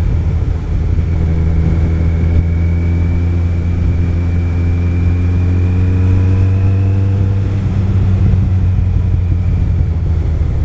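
Kawasaki ZX-14 sport bike's inline-four engine running at a low cruising speed, picked up by a helmet-mounted recorder. Its pitch rises gently a couple of seconds in and eases off again in the second half.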